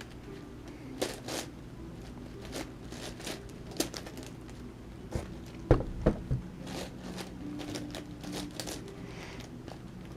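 Plastic clicks and scrapes of an 11x11x11 Rubik's cube's layers being turned by hand, irregular, with a louder pair of clacks about six seconds in.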